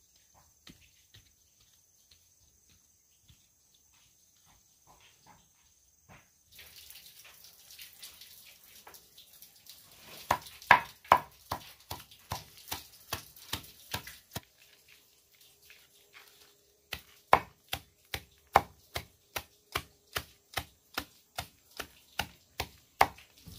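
Knife chopping a pile of leafy greens in quick, even strokes, about three a second, in two runs with a pause of a few seconds between.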